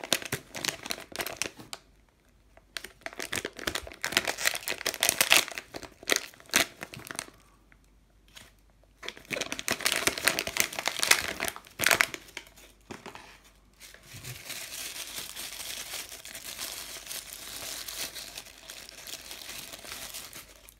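A foil mystery-figure blind bag being crinkled and torn open by hand, in bursts of crinkling with short pauses. In the last few seconds a softer, steadier rustle as the thin plastic bag around the figure is handled.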